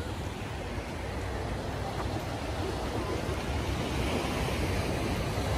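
Ocean surf washing onto a sandy beach, with wind rumbling on the microphone.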